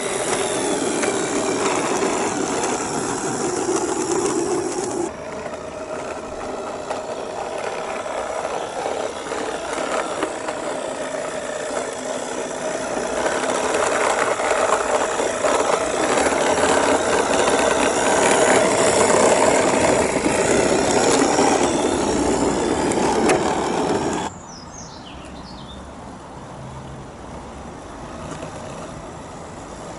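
A 16mm-scale garden railway railcar running along the track: its MFA Como gearhead motor and bevel-gear drive whirring, with the wheels rattling on the rails. The level steps down abruptly about five seconds in and drops much quieter near the end.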